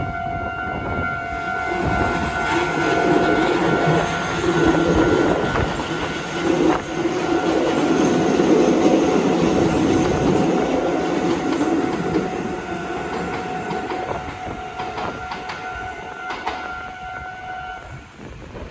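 Keisei 3500 series electric train passing over a level crossing, its wheels clattering on the rail joints, loudest about halfway through and then fading. The crossing's warning bell rings steadily alongside and stops shortly before the end.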